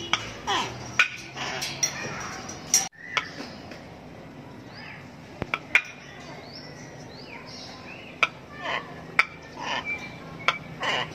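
Palm cockatoo calling: sharp clicks and short falling calls at irregular intervals, which the uploader presents as the bird imitating a tokay gecko's 'tokke' call.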